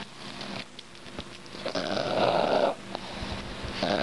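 Boston terrier making a rough, snorty grunt about a second long, a couple of seconds in, and starting another near the end, as it mouths a toy.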